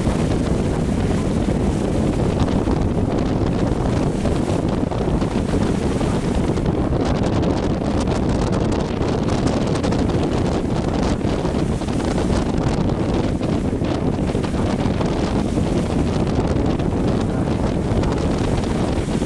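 Steady wind buffeting the microphone on the open top deck of a small passenger ferry under way, over the low, even rumble of the ferry's engine and hull running through choppy water.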